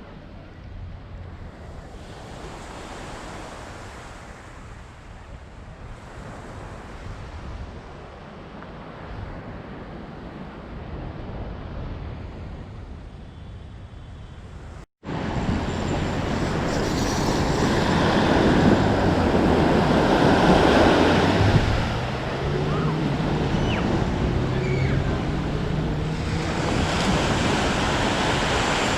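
Sea waves washing on the shore, with wind buffeting the microphone. About halfway the sound cuts out for an instant and comes back louder, and in the second half a low hum rises slowly in pitch.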